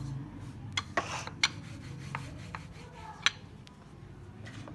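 Wooden rolling pin rolling out a ball of dough: rubbing and scraping strokes with a few sharp clicks as the pin knocks on the board.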